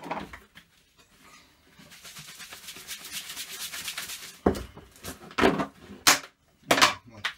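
Dry feeder groundbait being shaken inside a closed plastic bucket: a dense, rattling hiss of loose particles for a couple of seconds. It is followed by five or six loud knocks and thumps as the bucket is handled.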